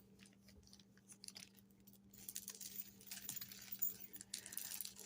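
Faint light clicks and rustles of a beaded necklace being handled and lifted from its wrapping.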